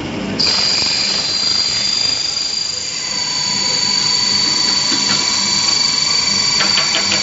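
HK 860 electric grain grinding mill running with a loud, steady high whine that starts abruptly about half a second in. A second, lower tone joins about three seconds in, and a short run of ticks comes near the end.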